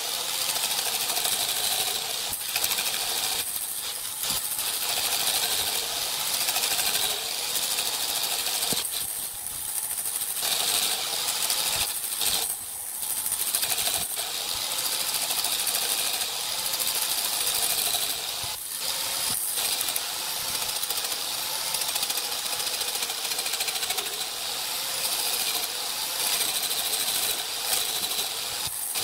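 Small wood lathe running steadily with a wooden cylinder spinning on it: a steady mechanical hiss with a faint wavering whine beneath.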